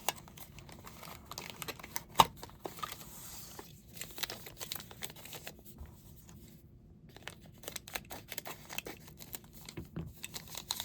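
Small blind-box packaging being opened and handled by hand: crinkling and tearing with scattered light clicks, and one sharp snap about two seconds in.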